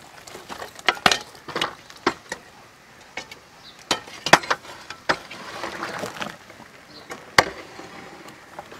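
Metal ladle knocking against a large aluminium cooking pot as meat boiling inside is turned over: about ten sharp, irregular clinks and knocks.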